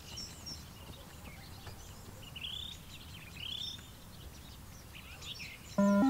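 Birds chirping over a low outdoor background hum, with two arched calls in the middle. Near the end comes the loudest sound: the beep-test recording's signal, a short run of electronic tones stepping up in pitch, marking the end of level 1 before level 2 starts.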